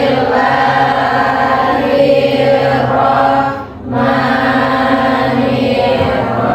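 A group of voices chanting a prayer together in unison, in long drawn-out notes, with a brief pause for breath a little under four seconds in.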